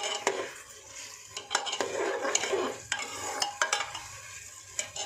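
Metal spatula stirring onions, garlic and ginger in hot oil in an aluminium pressure cooker, scraping and clinking against the pot at irregular moments, with the oil sizzling underneath.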